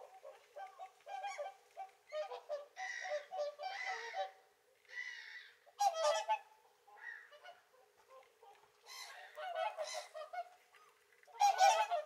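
A flock of whooper swans calling: many short honking calls, several birds at once, loudest about halfway through and again near the end.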